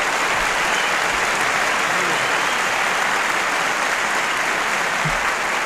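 A large audience applauding steadily, a dense, even clapping with no break.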